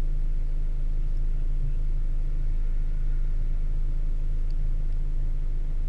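A stationary sports car's engine idling steadily, a low, even rumble.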